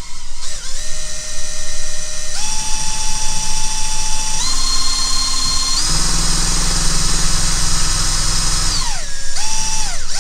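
Electric drill spinning a Jaguar Mark II rev-counter generator to stand in for the camshaft drive, its whine stepping up in speed three times, then winding down, spinning up briefly once more and stopping near the end. The faster it turns, the more voltage the generator makes and the higher the rev counter's needle climbs.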